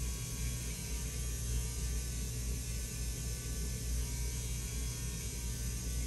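Steady low electrical hum with a faint buzz.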